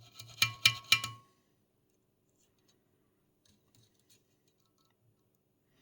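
Four quick, sharp metallic clicks with a brief ring in the first second or so, like small metal parts or tools knocking together while a mechanism is handled, then only faint ticks.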